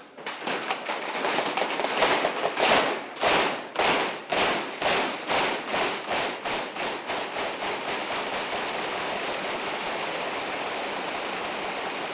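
A banquet crowd clapping in unison, about two claps a second, speeding up and then breaking into steady applause.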